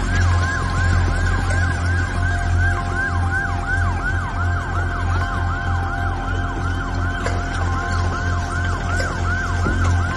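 Emergency vehicle siren in a fast yelp: a falling wail repeating about three times a second.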